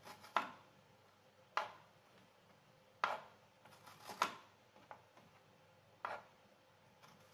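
Small steel spoon scraping the flesh out of split drumstick (moringa) pods against a plastic cutting board, giving sharp taps and scrapes about once every second or so.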